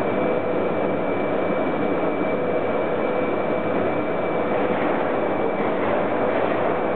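Steady, unbroken rushing din of a large indoor hall, with a faint constant high tone running through it.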